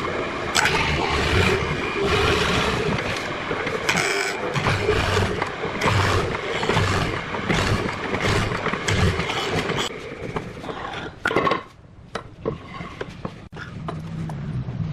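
Wood being worked with a tool: a loud, rough scraping that drops away briefly about eleven and a half seconds in, then resumes with scattered knocks.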